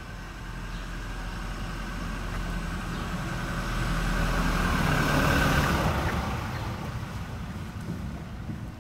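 A motor vehicle passing by on the road: engine rumble and tyre noise swell, peak about five seconds in, and fade away.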